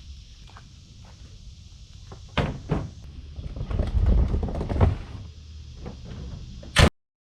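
Metallic clunks and knocks of the Barrett M107A1 .50 BMG rifle being handled, with a low rumble in the middle stretch, then one sharp, loud impact near the end that cuts off suddenly.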